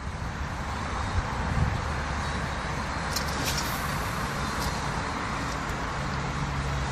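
Steady road-traffic noise with a low engine hum, and a few light clicks around the middle.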